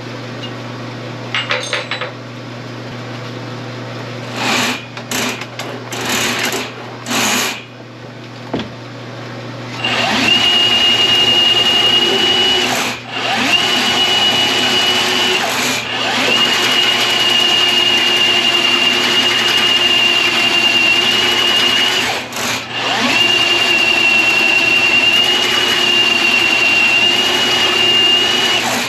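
Milwaukee M18 sectional drain machine running, spinning a bare 7/8-inch cable with no head into a main sewer line to work through a clog. A few short bursts come first, then the motor runs steadily with a high whine from about a third of the way in, stopping briefly three times.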